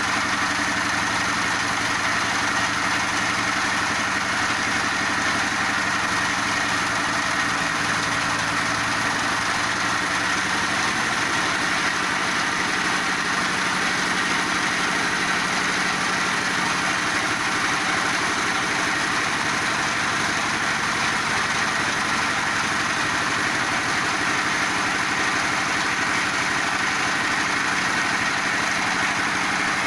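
Multifunction feed pellet machine running steadily, a continuous mechanical noise with a low hum whose pitch shifts about eleven seconds in.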